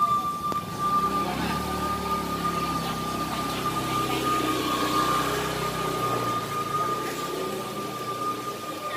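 Steady high-pitched whistle of a kue putu seller's steam cart, while a motorcycle engine runs close by from about a second in until near the end, its hum swelling and fading.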